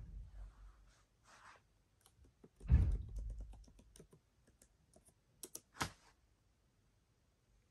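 Typing on the keyboard of a 14-inch M1 Pro MacBook Pro: a quick run of light key clicks as a password is entered, with a dull thump just under three seconds in.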